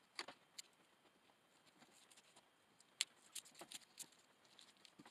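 Faint, scattered clicks and small ticks of a hand tool working on an electrical cable as its outer sheathing is stripped, the sharpest click about three seconds in.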